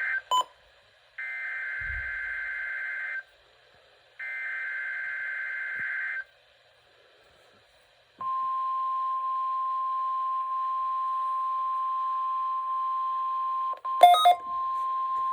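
NOAA Weather Radio Required Weekly Test tones: the end of one Specific Area Message Encoding (SAME) data burst, then two more raspy digital bursts about two seconds long, a second apart. About eight seconds in, the steady 1050 Hz warning alarm tone starts and holds, broken by a couple of clicks near the end.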